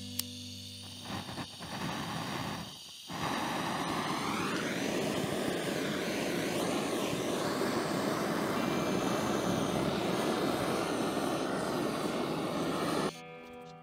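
Handheld gas torch: a click, a few short sputtering bursts, then a steady hiss of the flame for about ten seconds as it scorches the pine frame, cutting off suddenly near the end.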